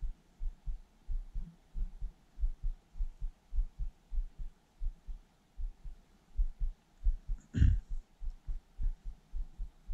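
Soft low thumps in a steady rhythm, about three to four a second, from a spinning reel being cranked slowly on a retrieve. One louder knock comes about three-quarters of the way through.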